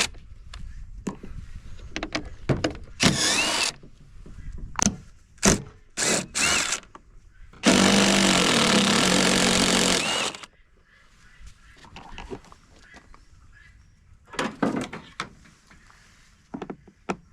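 Cordless impact drill backing out screws from a generator's housing in several short runs, then one steady run of about two and a half seconds near the middle.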